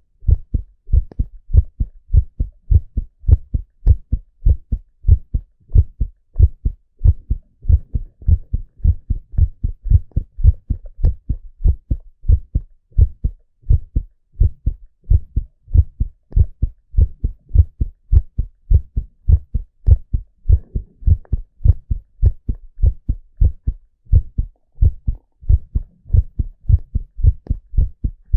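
A man's heartbeat: steady, regular low thuds in an even rhythm.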